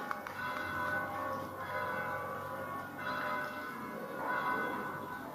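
Church bells ringing, with repeated strikes whose tones overlap and hang on.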